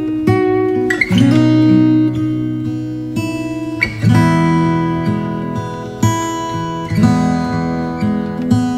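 Background music: a guitar strumming chords, each strum ringing on until the next, a new chord every one to three seconds.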